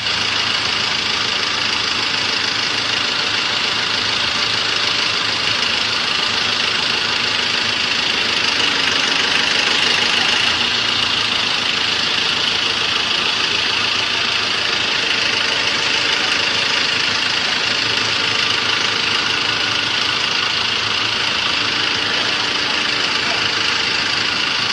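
Diesel generator set running steadily: a loud, even engine drone with a constant high whine over it.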